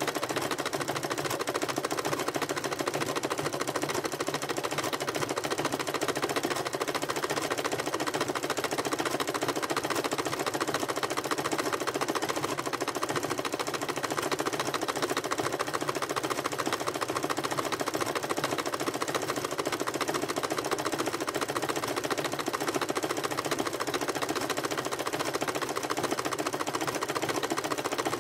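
Electric sewing machine stitching steadily at speed through a thick coil of fabric-wrapped rope: a rapid, even clatter of the needle mechanism that sounds like a bunch of horses galloping.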